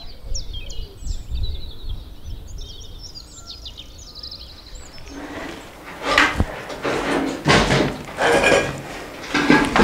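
Small birds chirping and twittering for the first few seconds, over a low ambient hum. About five seconds in, a run of louder knocks and clatters takes over.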